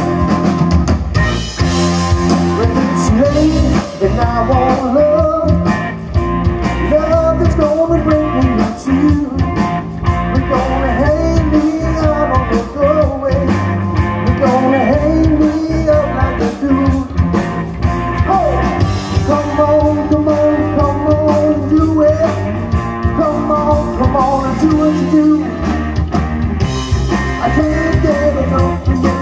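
Live rock band playing loud through a PA system: electric guitars, bass and drum kit, running on without a break.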